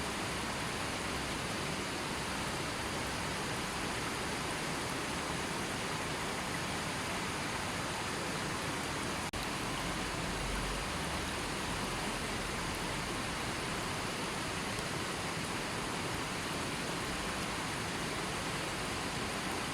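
A river flowing steadily: an even, continuous rush of water. About nine seconds in there is a split-second dip in the sound.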